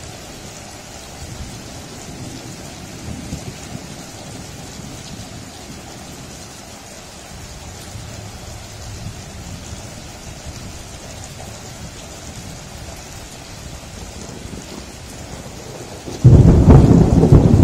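Steady rain with low thunder rumbling; near the end a sudden loud thunderclap breaks in and keeps rumbling.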